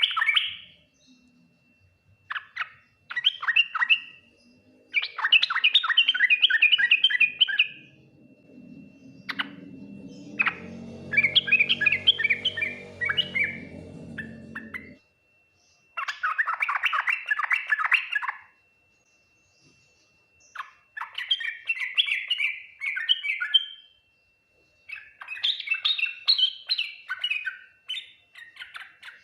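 Yellow-vented bulbul singing in repeated bursts of rapid, chattering, bubbling phrases, each two to three seconds long with short pauses between. A low droning hum sits under the song from about eight seconds in until it cuts off abruptly around the middle.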